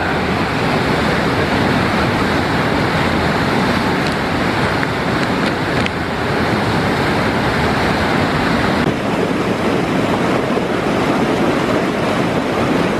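Loud, steady rush of a waterfall pouring into a rock pool. About nine seconds in it changes to the rush of a fast white-water stream.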